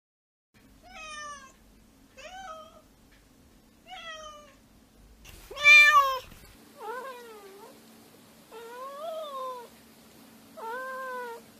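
Domestic cats meowing, seven meows in all. Three short meows come first, then one much louder meow a little before halfway, then three longer meows that rise and fall in pitch.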